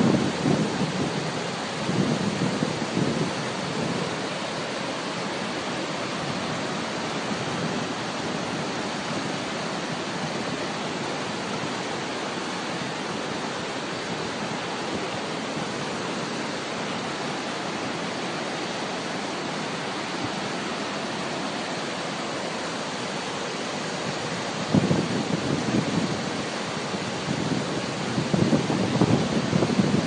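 Nuranang waterfall and its rapids making a steady, dense rushing noise of falling and churning water. Gusts of wind buffet the microphone with a low rumble in the first few seconds and again in the last five seconds.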